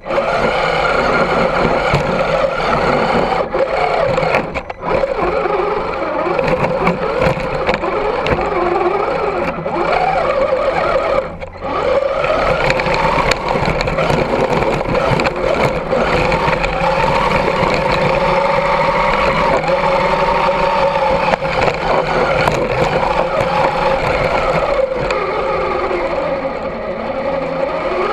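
Electric motor and geared drivetrain of an Axial SCX10 II 1/10-scale RC crawler whining as it drives through snow, heard close up from a camera on the truck. The pitch rises and falls with the throttle, drops out briefly twice, and is mixed with the hiss of tyres in the snow.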